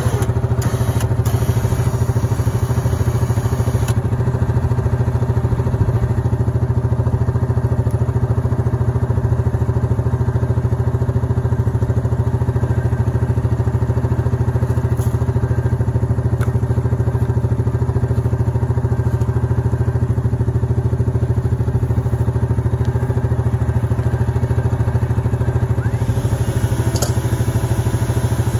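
Yamaha Grizzly 700 ATV's single-cylinder engine running steadily at idle, with a few light knocks and clanks.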